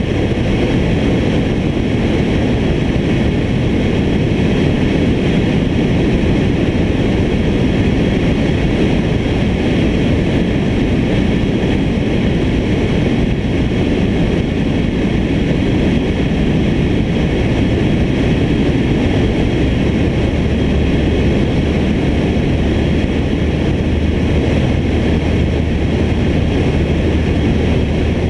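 Small high-wing airplane in flight: a steady drone of engine and rushing air on the camera. A low steady hum joins about two-thirds of the way through.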